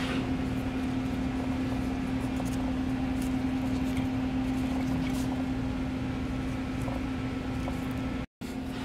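Steady machine hum holding one constant low tone, with a few faint light ticks. The sound cuts out for a moment near the end.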